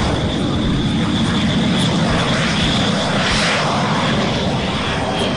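Jet engine of a Sukhoi 'Fitter' fighter-bomber running on the runway as the aircraft rolls out under its braking parachute. A loud, steady rush with a thin high whine over it, swelling slightly about three seconds in.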